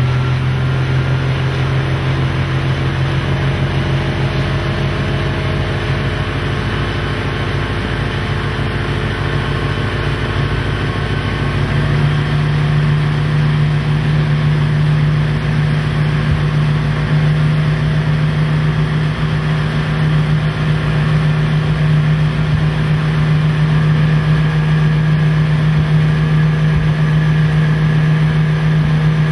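Gar Wood runabout's inboard flathead six-cylinder engine running at planing speed, a steady low engine note that steps up in pitch about twelve seconds in, over the rush of water and spray off the hull.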